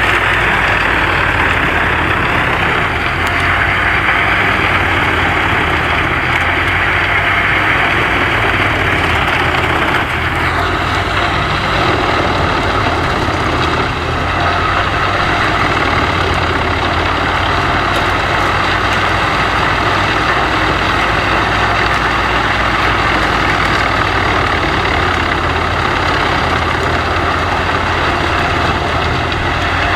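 Wood chipper running steadily and loudly, with a dense mechanical noise over its engine; the sound drops slightly in tone about a third of the way in.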